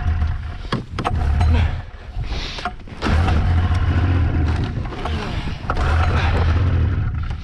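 Polaris Indy XLT 600 triple's three-cylinder two-stroke engine running on only two cylinders, one cylinder dead. The engine note drops off for about a second near the start, then picks back up and runs steadily.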